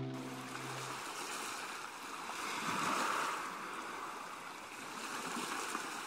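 Sea surf washing on the beach: a steady hiss that swells about halfway through and then eases off. Background music fades out in the first second.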